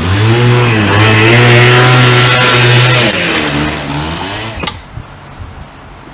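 Small two-stroke scooter engine revving up and down several times. It dies away about four and a half seconds in, ending with a sharp click.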